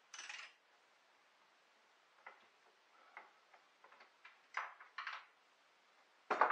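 Hands handling small parts and tools on a workbench: a short scrape or rustle at the start, then scattered light clicks and taps that come more often, with a louder knock near the end.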